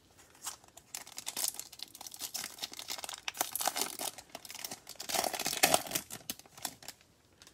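Foil trading-card pack wrapper being torn open and peeled off the cards, crinkling and crackling in a rapid run of sharp crackles that starts about half a second in, with the loudest crackles near the end.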